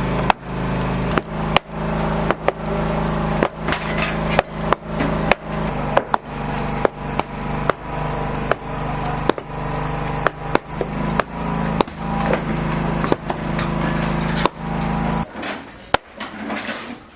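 Repeated sharp hand-tool strikes, one or two a second, over a steady low hum that stops suddenly about fifteen seconds in.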